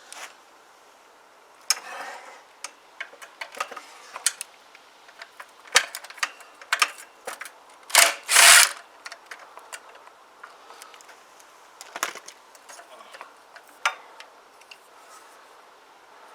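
Hand tools and metal parts clicking, knocking and clattering as the recoil pull-start housing is taken off a small petrol engine, with a loud scraping rattle about eight seconds in.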